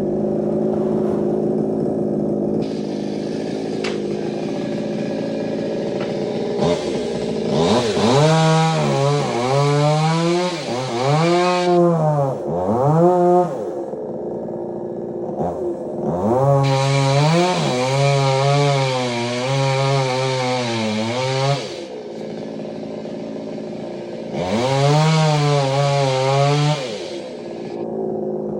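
Two-stroke chainsaw idling, then run up to full throttle three times for several seconds each while cutting a large tree, its engine note wavering as the chain loads in the wood before dropping back to idle.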